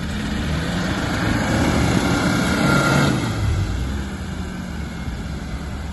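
Suzuki SJ 4x4's engine working hard off-road, growing louder up to about three seconds in and then easing off.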